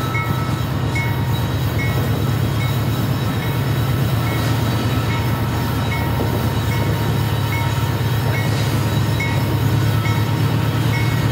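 Union Pacific diesel locomotives working hard at crawling speed to lift a heavy loaded coal train up a steep grade, with barely enough power to make the hill: a steady deep engine drone. A short high ring repeats about twice a second over it.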